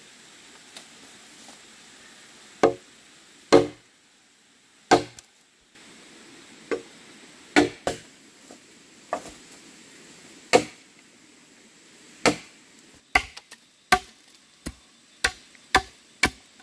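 Wood being chopped with a blade: a series of sharp blows, spaced a second or more apart at first, then coming quicker near the end.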